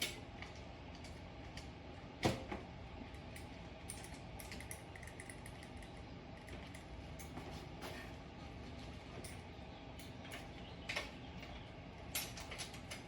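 Light metallic clicks and knocks as an e-bike's rear wheel axle and washers are worked into the frame dropout, with one louder knock about two seconds in and a few more near the end, over a steady low hum.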